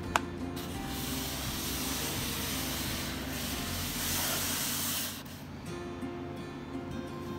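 Hand sanding a wooden radio cabinet with a sanding sponge: a continuous rasping scrub that starts just under a second in and stops about five seconds in. Background music plays underneath.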